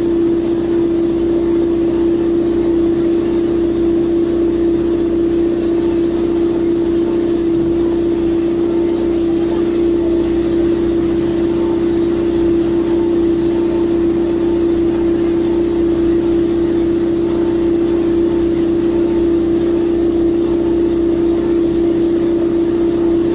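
Heavy construction machinery running steadily, a loud, unchanging mechanical hum with a fast, even pulsing underneath.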